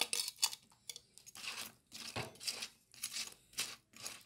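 Steel spoon scraping fried fish pieces from a terracotta bowl into a clay pot of thick vinegar-chilli paste and stirring them in: a run of short scrapes, roughly two a second.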